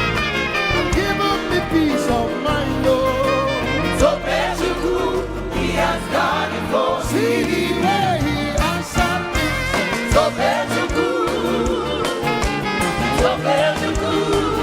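Live gospel praise music: a band with drums and bass playing while voices sing wavering, drawn-out melodic lines.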